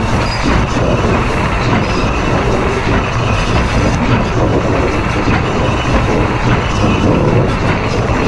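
Steel driving wheels of the steam locomotive D&RGW 491 rolling on the rail, heard close up at the wheels: a steady, dense rolling rumble and rattle with no pauses.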